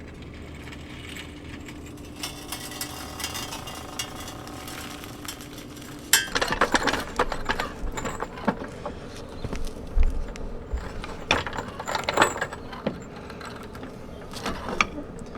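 Hand tools at work on the car: a ratchet wrench clicking quickly. From about six seconds in come louder irregular metal clanks and knocks.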